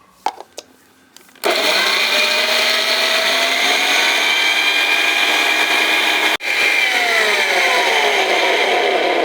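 Electric mixer grinder grinding green chillies: a few clicks, then the motor starts about a second and a half in and runs loud with a high whine. It breaks off for an instant about six seconds in, then runs on with its pitch sliding steadily lower.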